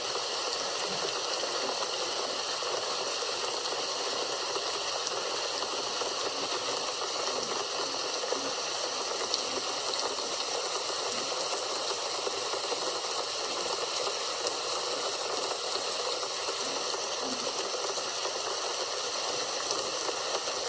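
Rain falling steadily: an even hiss with faint scattered ticks of drops.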